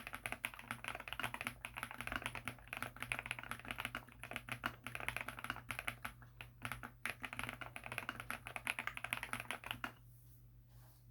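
Mechanical keyboard fitted with Gateron Deepping linear switches (nylon housings, POM stem, factory lubed) being typed on in a fast, steady run of keystrokes that stops about ten seconds in.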